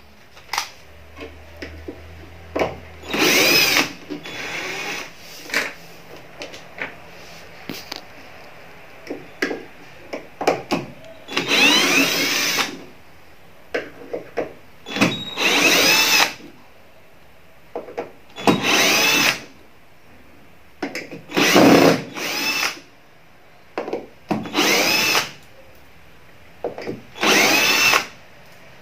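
Cordless drill-driver run in about eight short bursts of a second or so against the screws of a speaker cabinet's rear amplifier panel. Its motor whine rises and falls with each burst, and small clicks and handling knocks come in between.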